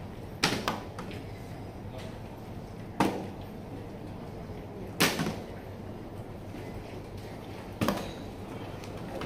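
Plastic water bottle flipped and landing on a seat with sharp knocks, four times about two to three seconds apart, the first a quick double bounce.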